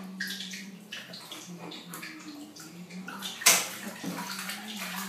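Water splashing and sloshing in a plastic baby bath basin as a hand washes the baby, with a sharp, louder splash about three and a half seconds in.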